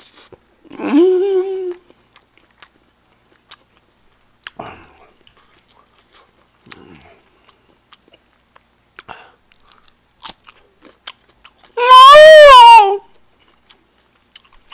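A person chewing food, with scattered soft mouth clicks and smacks. His voice sounds twice without words: a short rising sound about a second in, and a much louder, longer one that rises and falls about twelve seconds in.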